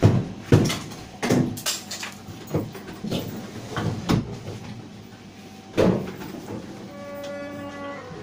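A run of sharp knocks and clacks, coming about twice a second early on and thinning out later. About seven seconds in, a mobile phone ringtone starts.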